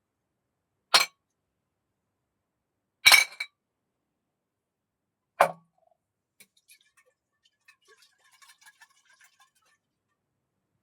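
Glass beer bottles clinking: four short sharp clinks spread over about five seconds, two of them in quick succession, followed by a few seconds of faint, scattered crackling.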